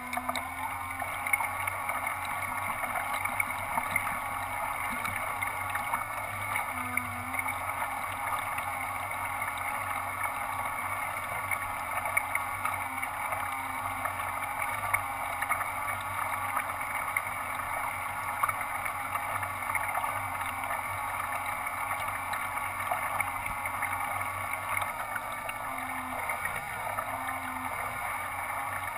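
Radio-controlled model boat's propeller motors running steadily, with water splashing and lapping against its small hull, heard close up from on board.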